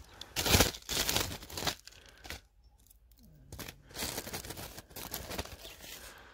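Fingers scraping and cracking a thin sheet of frost ice frozen onto a car's bodywork, a series of crunching, crackling scrapes. A pause of about a second near the middle, then more scraping.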